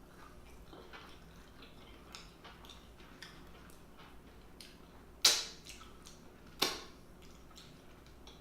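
Close-miked eating sounds of a person chewing seafood: soft wet mouth clicks and smacks throughout, with two much louder sharp clicks about five and six and a half seconds in.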